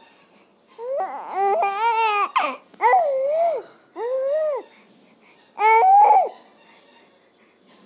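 Baby cooing and squealing: several drawn-out, high-pitched vocal sounds whose pitch slides up and down, separated by short pauses.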